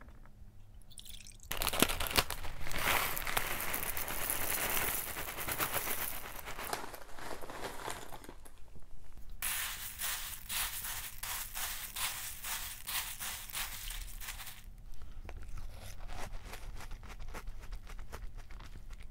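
Food pouring into a glass bowl for about seven seconds, starting about a second and a half in. From about nine seconds on, puffed wheat cereal floating in milk crackles densely as it is stirred with a wooden spoon, the crackle thinning and fading after about fifteen seconds.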